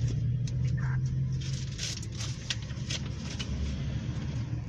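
Car engine idling, heard from inside the car as a steady low hum, with a few light clicks and a brief rustle.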